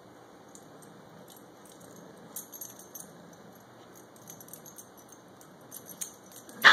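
Metal tags on an adult Siberian husky's collar jingling and clinking lightly as the dog moves its head over a puppy. Right at the end a dog gives a sudden loud yelp.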